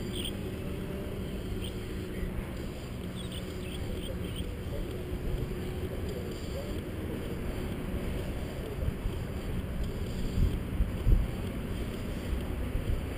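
A steady low engine hum with wind rumbling on the microphone, gusting harder about ten seconds in; faint voices far off.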